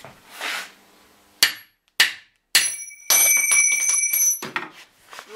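Steel hand tools knocking and clinking together in a workbench drawer as one is picked out: a few sharp knocks, then a high metallic ringing for just over a second that stops suddenly.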